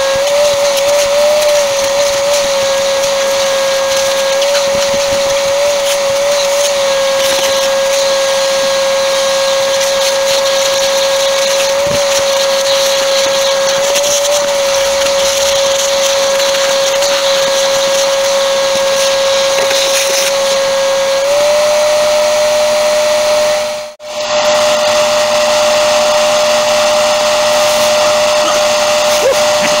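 Shop vacuum running steadily, a whine over rushing air, as its hose sucks old headliner insulation and debris off the inside of a car's bare steel roof. The whine steps up slightly in pitch about two-thirds of the way through, and there is a brief break just after.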